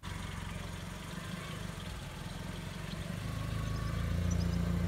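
Small hatchback car's engine running at low revs as the car moves off from the kerb, growing louder near the end.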